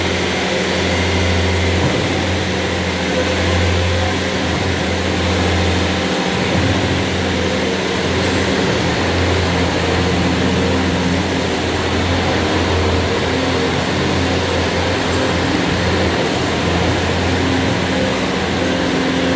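Bobcat T590 skid steer's diesel engine running steadily, its low hum swelling and easing a little every few seconds.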